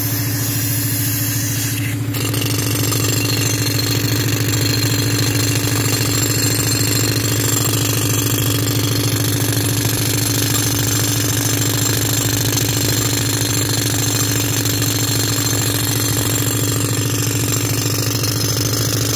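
Pneumatic rock drill hammering steadily and rapidly into rock, powered by air from a tractor-driven compressor whose engine runs underneath.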